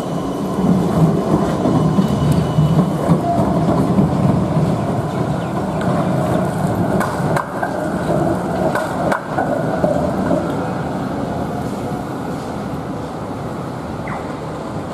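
A Melbourne Z-class tram passing close by on street track. Its wheels and motors make a steady rumble that builds in the first second, with a few sharp clicks about seven to nine seconds in as the wheels run over the track junction, then easing off as it moves away.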